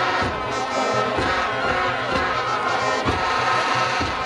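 Brass band music, with trumpets and trombones playing held notes over a steady drum beat of about two beats a second.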